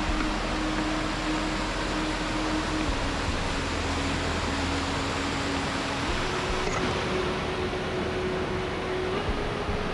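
Steady rush of a mountain river and its waterfall: an even hiss across all pitches, with no breaks.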